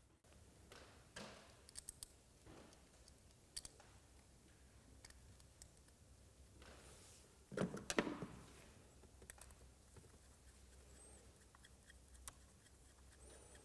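Faint clicks and rubbing from a small plastic electronics module being handled and reassembled by hand. A louder scrape and knock comes about eight seconds in.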